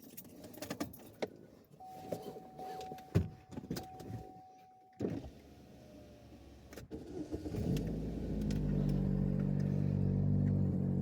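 Keys jangle and click in a 2010 Chevrolet Equinox while a steady electronic warning tone sounds, stopping suddenly about five seconds in. After a short pause the engine cranks and starts, then runs steadily.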